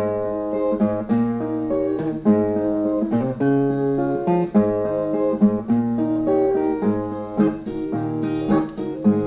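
Brazilian viola, a ten-string steel-strung guitar, playing an instrumental interlude: a plucked melody of held notes over a repeating bass line.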